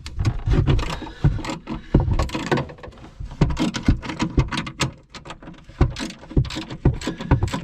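Ratchet with a 13 mm socket clicking in quick runs while undoing the top mounting bolts of a car's rear shock absorber, with metallic knocks of tool handling between.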